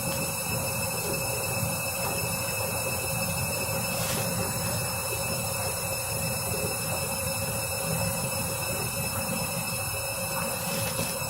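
Candy washing machine spinning its drum, a steady rumble with a constant high motor whine over it.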